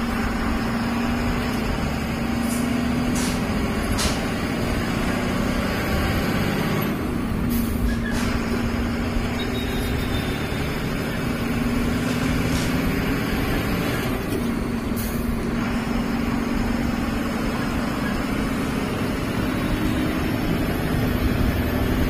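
Ashok Leyland truck or bus diesel engine running while the vehicle is driven and shifted up through the gears of its 8-speed range gearbox. The engine note drops and picks up again about 7 seconds in and again about 14 seconds in, at the gear changes. Short sharp hisses or clicks sound here and there.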